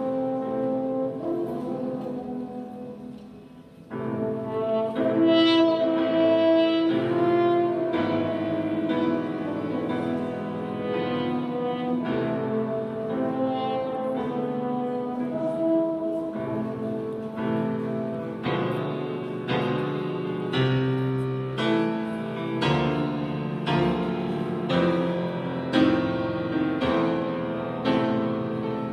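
Two French horns playing held melody notes in duet with grand piano accompaniment, a church hymn arrangement. The music softens briefly about three seconds in, then swells back, and in the second half the piano strikes chords in a steady pulse under the horns.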